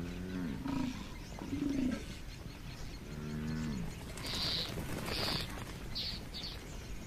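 Cape buffalo calling: several low grunts that fall in pitch over the first few seconds, followed by a run of short, high bird chirps in the second half.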